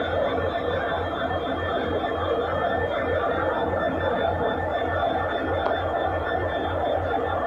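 Diesel engine of a standing passenger train idling: a steady hum with an even low throb several times a second and a thin steady whine above it.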